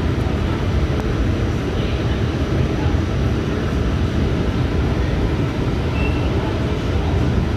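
Subway train running steadily along an elevated track, heard from inside the car: an even, low rumble of wheels and running gear.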